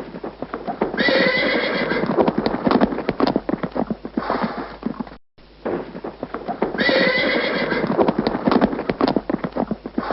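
Horse hooves clip-clopping in quick, uneven strikes, with a whinny about a second in. The same recording then restarts after a brief gap and plays the whinny and hoofbeats again.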